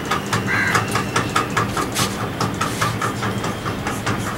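Rapid, even mechanical clicking, about six clicks a second, over a steady low hum.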